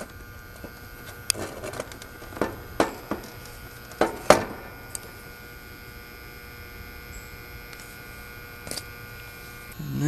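Sharp metallic clicks as a wire crimper squeezes the quick-connect spade terminals on run-capacitor wires to close them up, about half a dozen over the first five seconds. A steady hum runs underneath, and a higher tone joins it about halfway.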